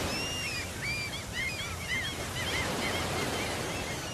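Surf washing over rocks. Over it, a bird calls a quick series of short, high, whistled notes.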